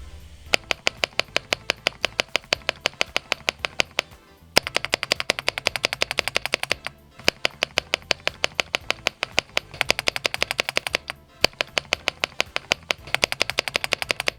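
Typing on a mechanical keyboard whose spacebar stabilizer has been tuned: rapid key clicks at about eight to ten a second, in runs broken by three short pauses.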